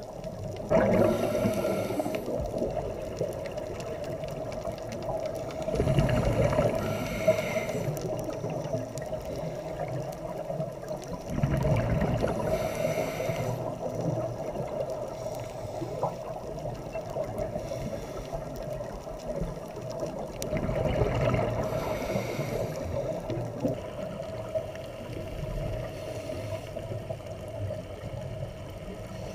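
Scuba diver breathing through a regulator underwater: a hiss on each breath and a burst of exhaled bubbles about every five seconds, over a steady hum.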